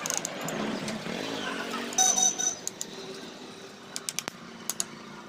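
A ratchet tightening a piston ring clamp around a diesel engine's piston, with a few quick clicks at the start and again near the end. A short metallic ring about two seconds in. A vehicle engine passes behind it in the first two seconds.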